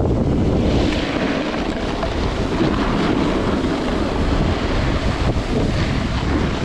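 Loud wind rushing and buffeting on a camera microphone during a downhill snowboard run, with the board's hiss over the snow mixed in.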